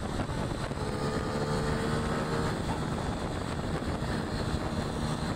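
Small Honda motorcycle's engine running steadily while riding along, with wind rushing over the microphone.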